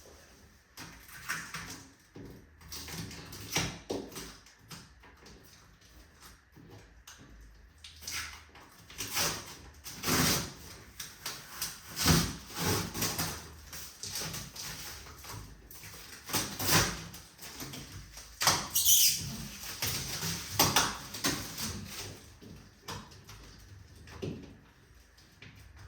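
Irregular knocks, bumps and scraping as a fridge is shifted and pushed into a tight space, with the loudest bangs about halfway through and again a few seconds later.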